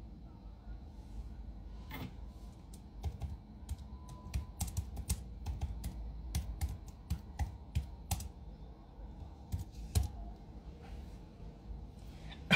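Typing on a computer keyboard: irregular keystroke clicks, a couple of dozen over several seconds, with pauses between runs. A louder bump comes at the very end.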